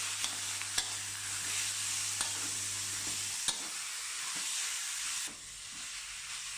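Sliced raw pork sizzling in hot oil as it is stir-fried with a pounded coriander root, garlic and black pepper paste, the spatula now and then clicking and scraping against the pan. The meat is just starting to cook and firm up. The sizzle drops a little about five seconds in.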